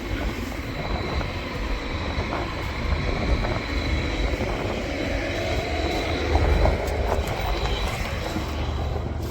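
Semi-truck running on the road, a steady engine rumble with road noise and a faint high whine.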